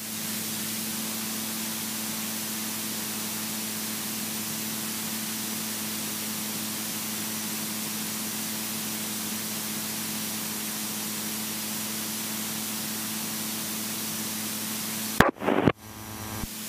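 Steady hiss of a light aircraft's cockpit intercom audio feed, with a faint steady hum beneath it. About fifteen seconds in, a sharp click and a short loud burst break in, as when a microphone is keyed.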